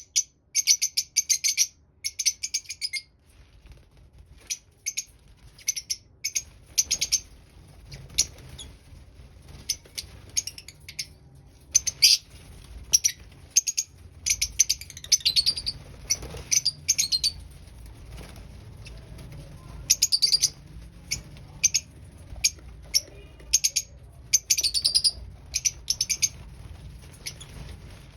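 Young lovebirds chirping in rapid trains of high, sharp chirps, coming in bursts with short pauses between, over a faint low hum.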